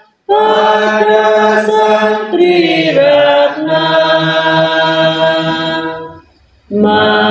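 A group of devotees singing a Buddhist devotional song slowly in unison, led by a woman's voice through a microphone. Each syllable is drawn out into a long held note, stepping from pitch to pitch. The singing stops briefly for a breath near the end and then resumes.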